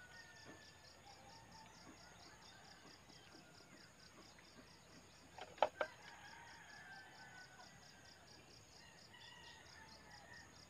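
Faint outdoor ambience: insects chirring in a steady, rapid pulse of about four beats a second, with faint bird calls. A couple of sharp clicks about halfway through.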